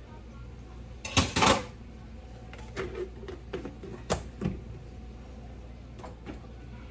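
Kitchen handling sounds: two sharp knocks about a second in, then a few scattered lighter taps and clicks as a spoon and a plastic sour cream tub are moved on the counter beside a bowl of biscuit dough.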